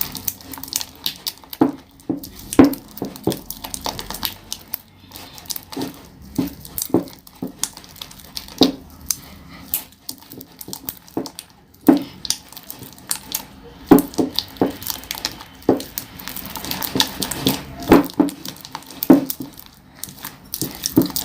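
A spoon stirring slime in a pot, knocking and scraping against the container in irregular clicks, as the mixture is being activated.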